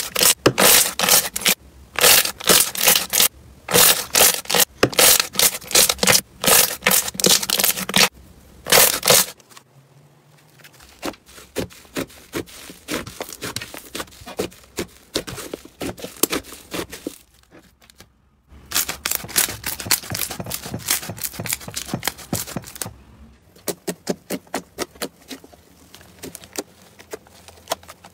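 Hands squeezing and stretching slime, with close, dense crackling and popping. The crackling is loud through the first nine seconds as a clear slime is squeezed, then softer as a thick slime is stretched and torn apart, with several abrupt changes where one clip gives way to the next.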